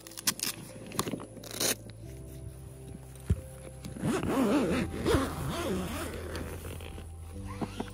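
Hook-and-loop straps on a rooftop tent's vinyl travel cover being torn open, with a few short rips in the first two seconds, then the stiff cover rustling and scraping as it is handled. Background music with low sustained notes runs underneath.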